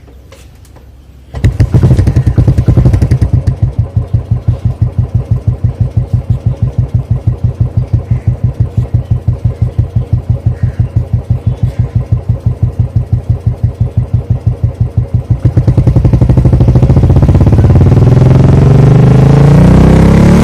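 Royal Enfield Classic 350 BS4's single-cylinder engine starting about a second in, then idling with its steady exhaust thump. Near the end it is revved up and held at higher revs.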